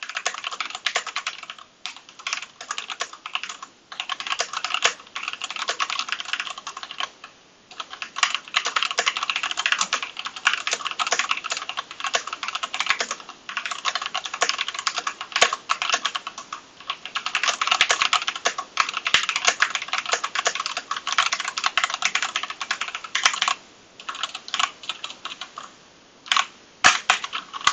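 Typing on a Keychron V2 mechanical keyboard with Gateron Brown tactile switches, a fast run of key clacks with a few short pauses and sparser keystrokes near the end. The owner puts its sound down to worn-out springs in the well-used board.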